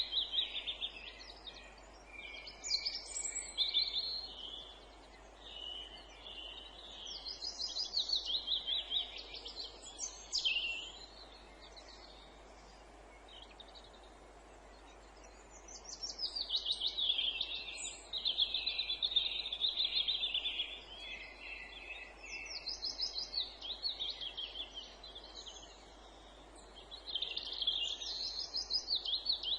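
Wild songbirds singing: repeated bursts of quick trilled song phrases, several sliding down in pitch, each lasting a second to a few seconds, with a lull of a few seconds about halfway through. A faint steady outdoor hiss lies beneath.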